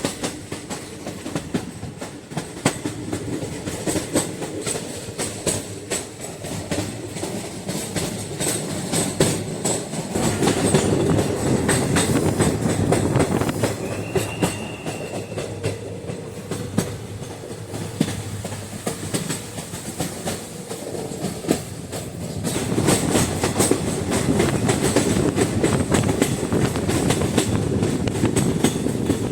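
Train running along the track, the wheels clicking rhythmically over rail joints with a steady rumble. It grows louder about ten seconds in and again from about 23 seconds, with a brief high squeal about halfway through.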